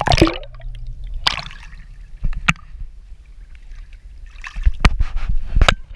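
Pool water splashing and sloshing right against a waterproof action camera as it dips in and out at the waterline, over a low rumble, with several sharp splashes and a cluster of them near the end.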